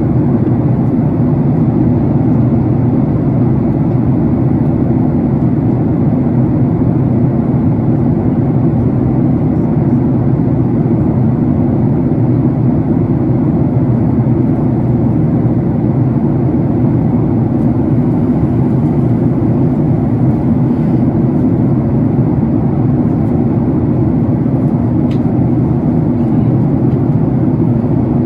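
Jet airliner in flight, a steady low drone of engines and rushing air heard inside the cabin, unchanging throughout.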